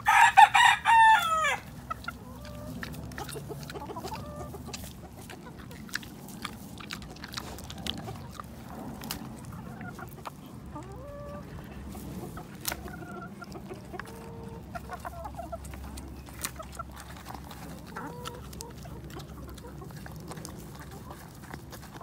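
A chicken gives one loud crow in the first second and a half, ending on a falling note. After that come scattered short clucks and many sharp clicks as chickens and red-footed tortoises peck and bite at food in a dish.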